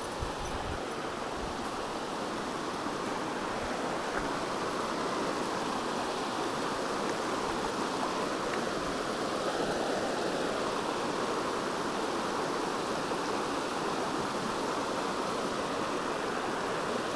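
Brook water rushing and cascading over rocks: a steady, even rush of whitewater.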